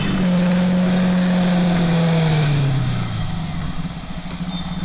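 Yamaha R15's single-cylinder engine running under way, with wind rush. Its note drops steadily over the first three seconds as the revs fall, then runs quieter.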